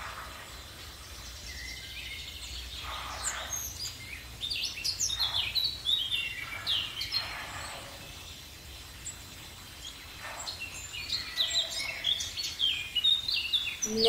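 Birds calling: a stream of short, high chirps over a steady background hiss, busiest in two stretches, a few seconds in and again near the end.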